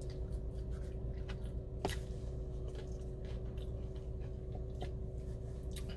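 A person chewing tortilla chips loaded with a creamy bean dip, mouth closed: faint crunches, with one louder crunch about two seconds in. A steady low hum runs underneath.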